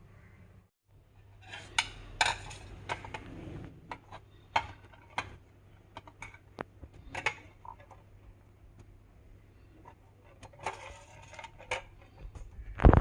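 Irregular clicks, clinks and knocks of hard kitchen items being handled, with a loud knock at the very end.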